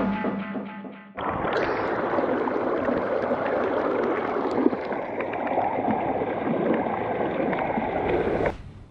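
Small stream running and splashing over rocks, a steady rush of water that starts about a second in, after the music fades out, and cuts off sharply near the end.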